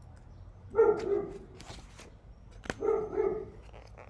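A dog barking in two quick pairs of short barks, the first about a second in and the second about two seconds later, with paper rustling and a light tap in between as a book page is turned.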